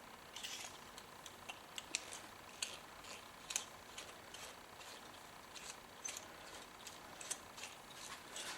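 Faint, scattered light clicks and taps of small metal pen-kit parts being handled and fitted together while a click pen is assembled.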